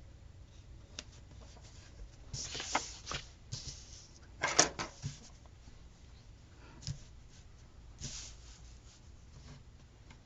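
Scattered rustles and light knocks of paper sticker sheets being handled, the loudest a short sharp one about halfway through.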